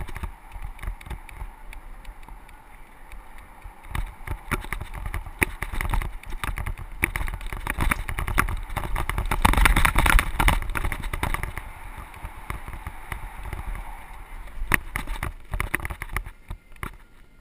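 Mountain bike riding over rough dry dirt trail, heard from a camera mounted on the rider: a steady rush of wind and tyre noise with frequent rattles and knocks from the bike, swelling to its loudest about ten seconds in.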